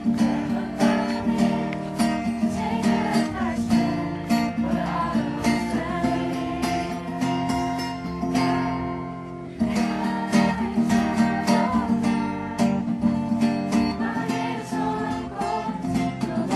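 Acoustic guitar strummed in a steady rhythm, with voices singing along. The music fades for a moment and comes back in strongly about nine and a half seconds in.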